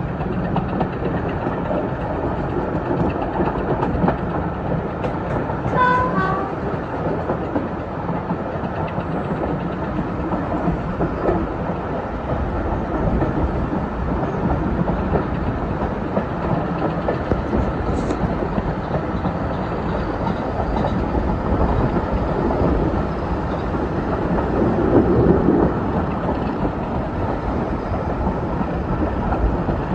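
Steady running noise of a diesel-hauled passenger coach on the move, heard from an open carriage window: wheels rumbling on the rails. About six seconds in, a brief horn-like note sounds.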